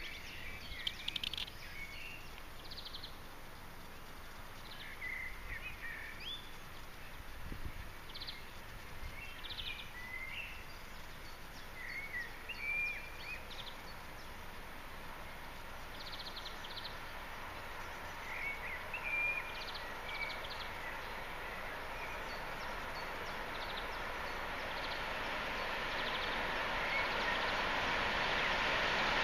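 Small birds chirping and calling over outdoor ambience. About two-thirds of the way through, the steady rushing noise of an approaching freight train starts to build and grows louder to the end.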